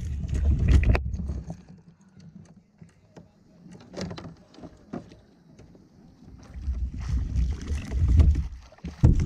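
A smallmouth bass being fought and swung up beside a kayak: scattered splashes, knocks and clicks of tackle. A low wind rumble on the microphone fills the first second or so and comes back near the end.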